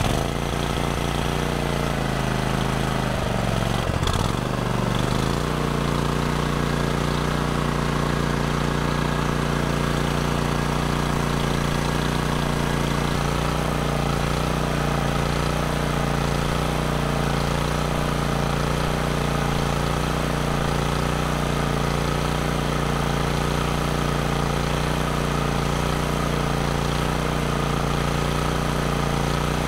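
Cub Cadet RZTL zero-turn mower's 24-horsepower engine running; its speed sags briefly about three seconds in, then climbs and holds steady while its maximum RPM is checked with a tachometer.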